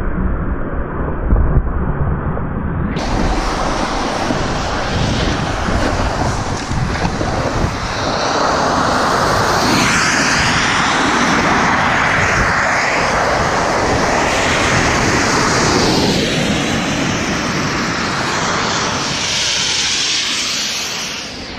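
Steady rushing of wind over the microphone along with a snowboard scraping across snow during a run downhill. About three seconds in, the sound turns suddenly brighter and fuller.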